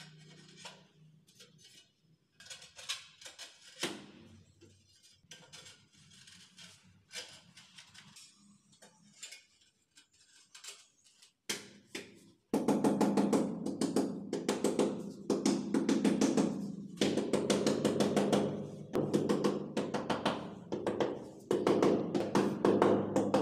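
Rubber mallet tapping floor tiles down into the mortar bed: rapid dull thuds that start abruptly about halfway through and keep on. Before that, only scattered light taps and clicks as the tiles are handled and set in place.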